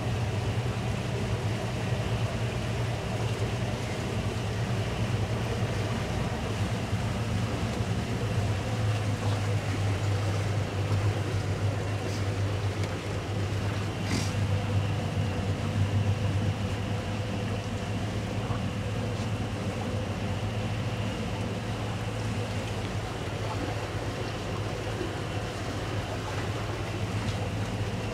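Towboat's twin outboard engines running steadily at low speed, a constant low drone, while pulling a disabled boat tied alongside. A single light click about fourteen seconds in.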